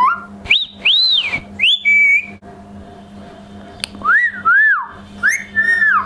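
Indian ringneck parakeet whistling: short rising-and-falling whistled notes, about four in the first two seconds and four more from about four seconds in, with a single sharp click between them.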